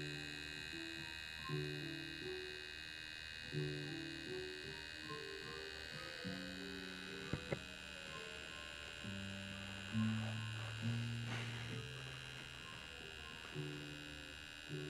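Slow background music: low struck notes and chords changing every second or so, over a steady high-pitched electrical hum. Two short clicks about seven seconds in.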